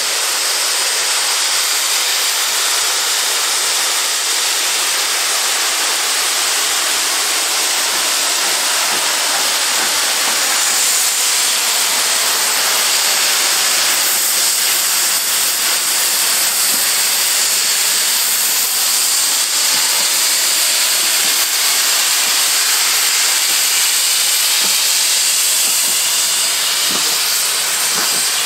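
Lancashire and Yorkshire Railway 0-6-0 saddle tank steam locomotive hissing steam as it draws a train of coaches past. A loud, even, high hiss with no distinct exhaust beats.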